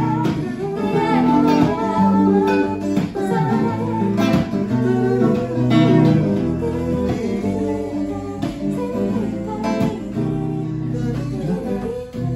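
Classical acoustic guitar and electric guitar playing together in a Cuban son rhythm, with voices singing over them.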